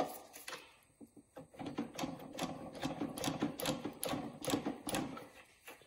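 Hand tools working on a motorcycle's frame parts, giving a fast, irregular metallic clicking and clattering that is busiest in the middle and dies away near the end.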